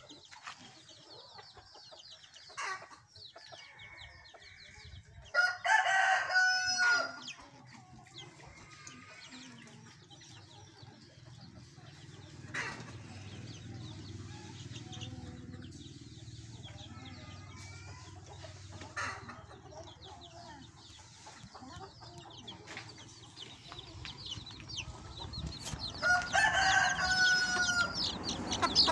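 A rooster crowing, a long call about five seconds in and another near the end, with scattered short chicken clucks between.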